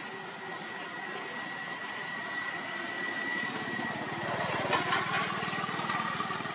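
A motor engine running in the background, growing louder from about four seconds in, over a steady hiss and a thin, steady high whine.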